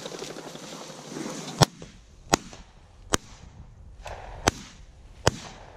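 Five sharp, isolated clicks, irregularly spaced about a second apart, the first the loudest, over a faint rustle of movement through tall dry grass.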